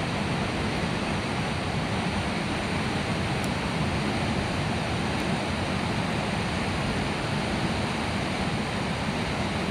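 River rapids rushing steadily, an even wash of water noise.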